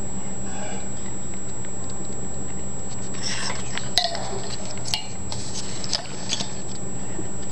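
Light rustling and a few sharp clicks and rattles from a wire pet cage as a small white furry pet moves about in it, over a steady hum and high whine.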